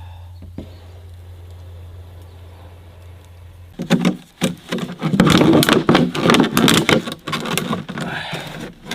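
Plastic bottles being handled and cut to make a bottle fish trap: a steady low hum, then from about four seconds in a loud, dense run of crackles and snaps of the plastic.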